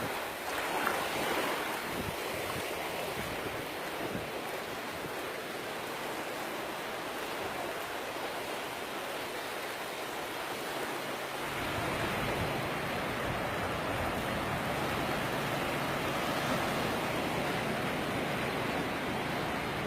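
Ocean surf breaking and washing on a sandy beach, a steady rushing that grows fuller and slightly louder a little past halfway.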